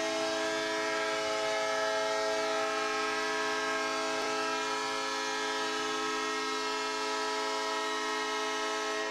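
Ice-hockey arena goal horn blowing one long, steady blast of several notes at once, signalling a home-team goal.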